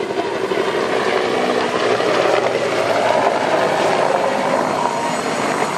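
Bell AH-1S Cobra attack helicopter making a low pass: steady rotor chop and engine noise, growing a little louder about three seconds in.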